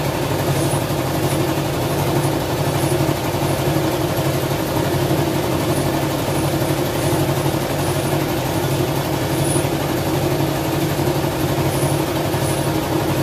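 A steady mechanical drone that holds the same low hum throughout, without changes in pitch or speed.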